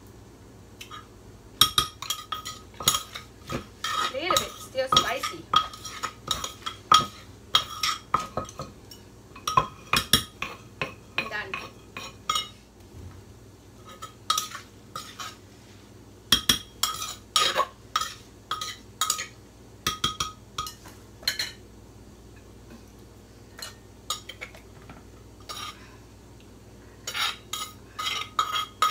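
A wooden pestle and a spoon knocking and scraping against a clay mortar as green papaya salad is pounded and tossed. The knocks come in quick runs, each with a short ringing clink. There is a long pause partway through and a fresh burst near the end.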